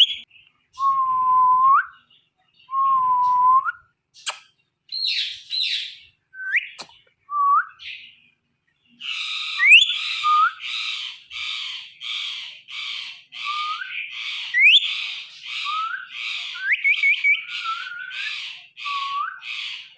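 Indian ringneck parrot whistling and chattering: two whistled notes that rise at the end, a few short squawks, then from about halfway a steady run of raspy chirps, about two a second, mixed with short rising whistles.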